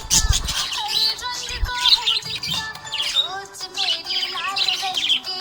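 Budgerigars chirping and warbling in rapid, busy bursts over background music with a low beat.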